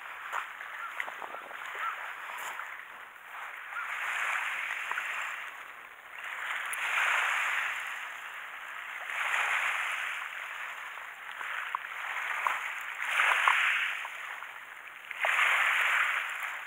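Small waves washing and splashing in, swelling and fading in repeated surges about every two seconds.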